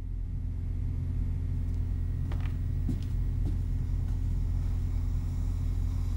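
A steady low rumbling hum with a faint pitched drone in it, swelling slightly in the first second, with a few faint soft clicks a little over two seconds in and again around three seconds.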